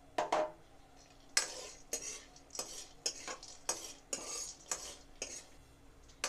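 A steel spoon scraping and stirring bori around a metal kadai: about a dozen short scrapes, roughly two a second. The bori are frying in hot oil underneath, with a light sizzle.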